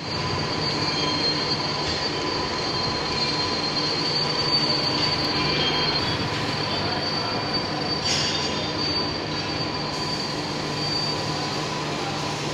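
Machine tool cutting an impeller shaft: steady metal-machining noise with a thin high-pitched whine over a lower hum, and a brief hiss about eight seconds in.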